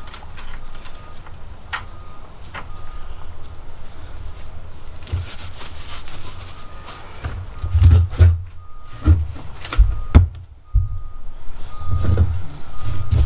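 Hand-tool work on a side-by-side's front suspension: scattered clicks and clinks of metal parts and tools being handled, with several heavy low thumps in the second half.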